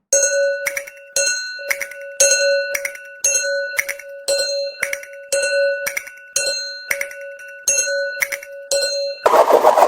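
Japanese railroad level-crossing warning bell clanging in a steady repeating rhythm, about two strikes a second, each strike ringing on. It cuts off suddenly near the end and a louder rough noise takes over.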